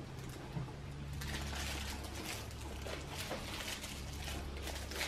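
Crinkling of a thin plastic snack-cake wrapper being handled as the cake is eaten from it: irregular crackles starting about a second in, over a faint steady low hum.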